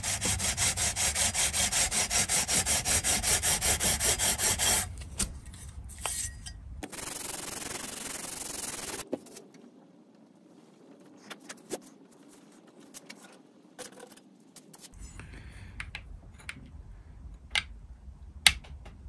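An abrasive fret-levelling beam rubbed in rapid, even back-and-forth strokes across the metal frets of a Squier Stratocaster neck, grinding the fret tops level. The 18th fret is only just being reached, so more passes are needed. The strokes stop about five seconds in, leaving light clicks and handling noise.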